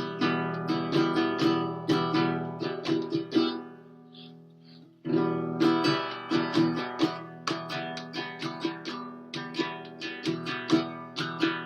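Acoustic guitar playing, strumming and picking chords; it dies away about four seconds in and starts again a second later.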